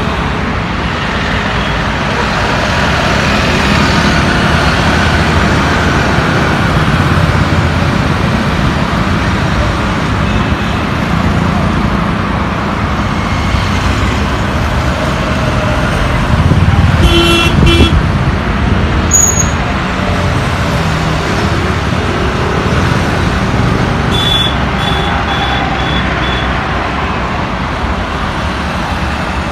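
Steady city road traffic: motorcycles, scooters, cars and auto-rickshaws passing. A louder vehicle goes by with a short horn toot about 17 seconds in.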